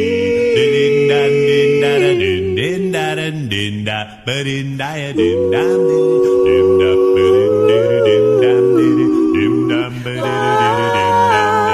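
A cappella vocal group singing sustained harmony chords without words, with a bass voice underneath and long held upper notes.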